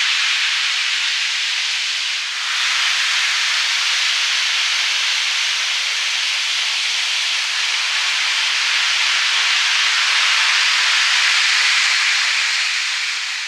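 N gauge Shinkansen model trains running along plastic elevated viaduct track: a steady, high hissing rush of wheels and motors, with a brief dip about two seconds in.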